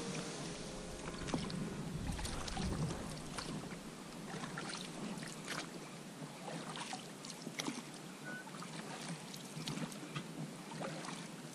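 Oars working an inflatable PVC boat: irregular knocks and splashes from the strokes, with creaks from oarlocks that have not been greased. Some wind rumble on the microphone in the first few seconds.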